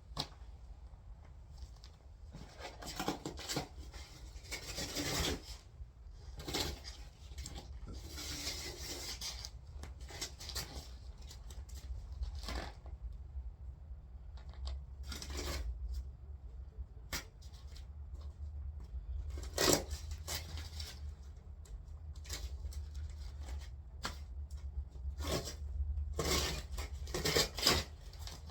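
Painter's tape being peeled off a freshly painted 2JZ-GE engine block: irregular short rasping tears, some a second or two apart and some in quick runs.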